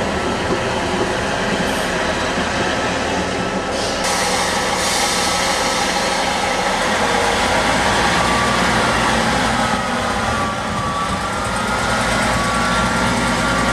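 ScotRail diesel multiple unit passing at close range, its wheels running on the track and its diesel engines running, with an abrupt change in the sound about four seconds in. From about ten seconds in a whining tone shifts in pitch.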